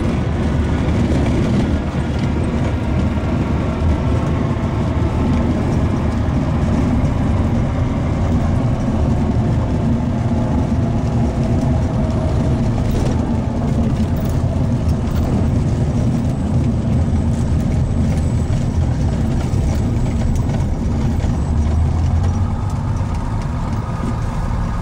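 Single-engine light aircraft's piston engine and propeller running steadily at low power while the plane taxis on a dirt airstrip, heard from inside the cockpit.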